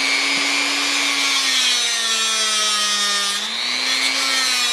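Grinder motor running with a steady whine as the end of a steel flex cable is ground round against it. Its pitch sags for a couple of seconds under load, comes back up as the pressure eases, and sags again near the end.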